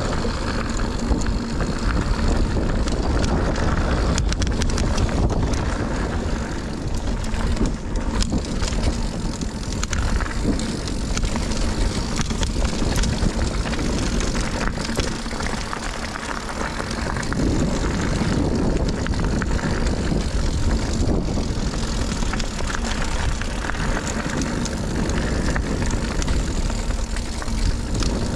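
Scott Ransom 910 full-suspension mountain bike descending a dirt trail: tyres rolling over the ground, with the chain and frame rattling in many small clicks and knocks over bumps, and wind buffeting the action camera's microphone in a steady low rumble.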